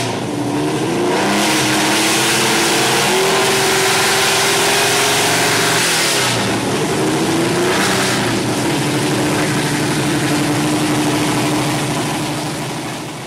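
Ford Capri RS 3100 Cosworth racing car's V6 engine revving hard and holding high revs for several seconds, with a loud exhaust. About six seconds in the revs drop sharply, then climb again and hold before fading near the end.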